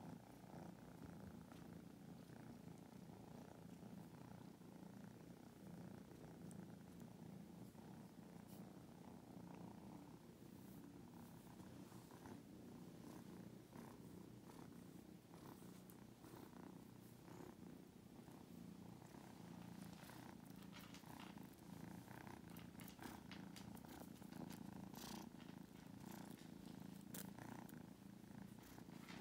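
Grey tabby kitten purring softly and steadily while its fur is rubbed with a soft toothbrush, a sign it is content. Small scattered clicks come in after about ten seconds and grow more frequent in the second half.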